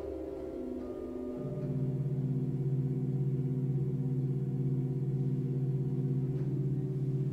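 Contemporary pipe-organ music from the Kunst-Station Sankt Peter organ in Cologne: a sustained cluster of held notes with a fast, pulsing waver. About a second and a half in, a loud low note enters beneath it and holds.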